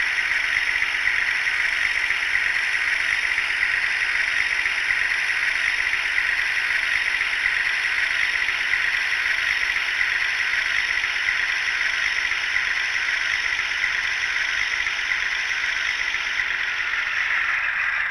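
An OO gauge model Class 52 Western diesel locomotive's ESU sound decoder plays a steady diesel engine sound through its small onboard speaker as the locomotive runs slowly along the track. A lower hum within the sound drops away about a second before the end.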